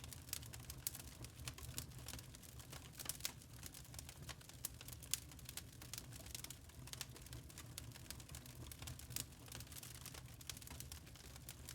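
Wood fire burning in a fireplace: logs crackling with irregular sharp pops and snaps over a low, steady rumble of the flames.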